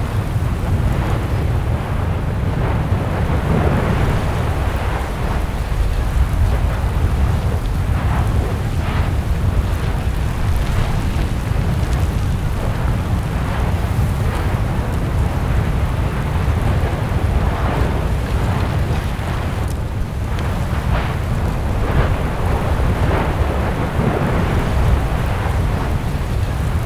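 Erupting volcanic vent with a lava pond: a deep, steady rumble with irregular crackling bursts as the lava churns and spatters.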